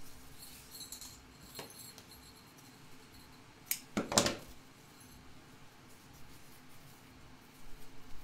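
Quiet handling of ribbon and craft supplies on a work mat, with two sharp clicks a little before and just after four seconds in, the second the louder.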